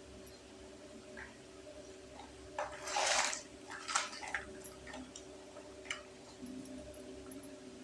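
Small plastic toy kitchen pieces and their packaging being handled: a brief rustling scrape about three seconds in, then a few light clicks, over a steady low hum.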